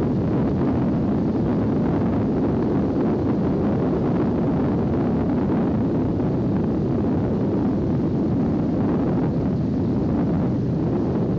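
Steady low rumble of a vehicle driving along a road, engine and road noise with no change in level, with wind on the microphone.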